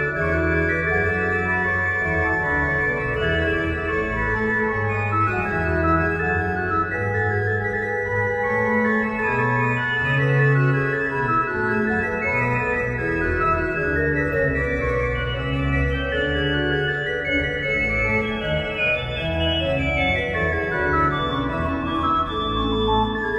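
Organ playing slow, sustained chords, the notes held and changing every second or two.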